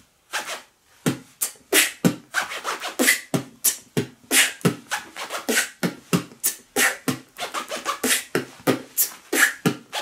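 Beatboxing with a clothing zipper: the zipper on a padded vest is pulled quickly up and down as scratch sounds, mixed with mouth beatboxing. A fast string of short, sharp strokes, about three a second, starting just after a brief pause.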